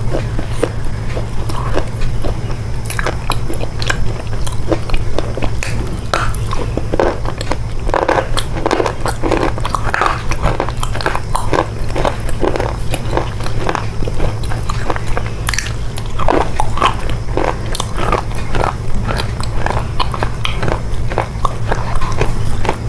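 Close-up, wet chewing and biting of chocolate, about two chews a second, over a steady low hum.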